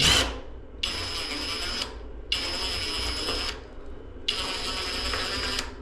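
Cordless drill/driver driving a screw into the shower door's aluminium frame, run in three short bursts of about a second each with brief pauses between, a steady motor whine in each.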